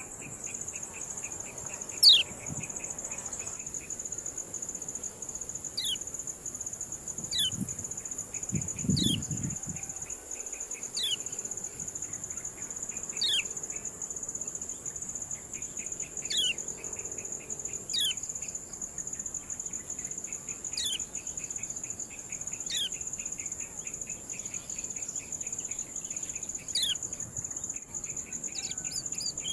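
Kecial kuning white-eye giving its 'ciak' call: short, sharp whistles that sweep steeply down in pitch, repeated about every one and a half to two seconds. A steady, high insect drone runs underneath.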